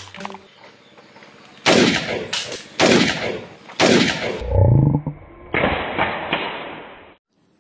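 Three loud gunshot sound effects about a second apart, each a sharp crack that trails off, as a toy assault rifle is mimed firing. They are followed by a low rising boom and a duller rush of noise that fades away.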